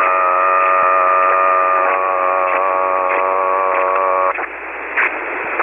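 A man's voice holding one long steady vowel over single-sideband ham radio, used as a human test tone while setting an Icom IC-718's mic gain for two-thirds on the ALC meter. It cuts off about four seconds in, leaving the receiver's steady hiss.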